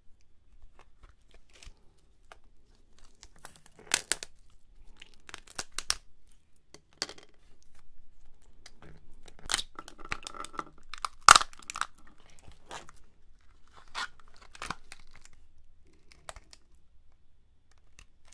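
Raw soy-sauce-marinated swimming crab (ganjang gejang) being pulled apart by hand: the shell and legs crack and snap now and then, with wet tearing as the top shell is pried off. The loudest crack comes about eleven seconds in.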